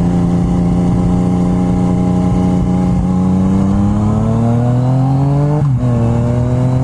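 Yamaha MT-09's 847cc three-cylinder engine through an unbaffled Akrapovic carbon full exhaust, pulling under way: steady at first, then climbing in revs, with a sudden drop in pitch near the end as it shifts up a gear, then running on at the lower note.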